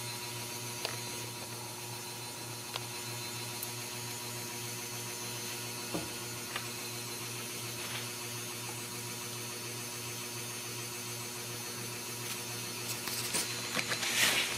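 Steady electrical hum and hiss of room tone, with a few faint single clicks and a quick cluster of clicking and rustling near the end.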